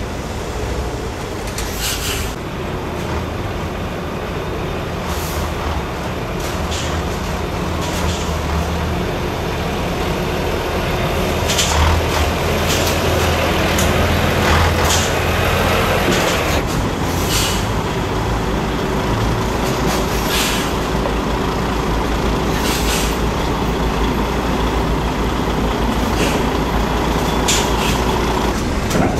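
Diesel engines of DAF XF semi-trucks running at low speed as they manoeuvre, louder about halfway through as a truck passes close. Short hisses of air, typical of truck air brakes, come now and then.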